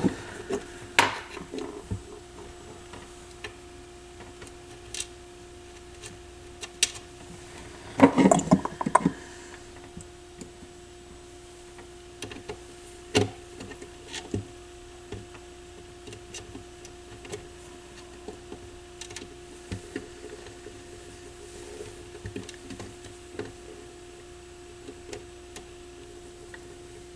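Scattered small clicks and knocks from hands and a hand tool working on a turntable's base, with a louder stretch of handling about eight seconds in. A faint steady hum runs underneath.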